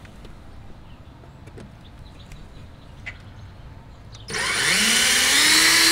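Cordless drill with a 1/4-inch bit starting up about four seconds in, its whine rising in pitch and settling to a steady speed as it drills a mounting hole.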